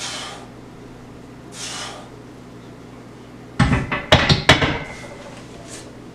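Two hard exhales on the last bench-press reps, then a loaded barbell racked onto the bench's steel uprights about three and a half seconds in: a quick cluster of loud metal clanks and plate rattles.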